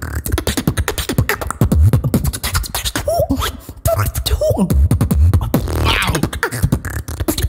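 Human beatboxing: a fast stream of mouth clicks and snare-like hits over deep bass kicks. A few short sung pitch glides come a little before the middle, followed by a brief drop in sound.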